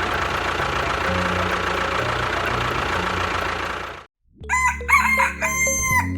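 A steady noisy running sound over a low pulsing beat cuts off about four seconds in, and after a short gap a rooster crows.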